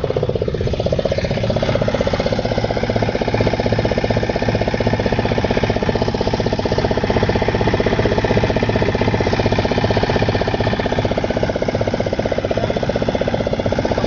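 Boat engine running steadily, with a rapid, even pulse.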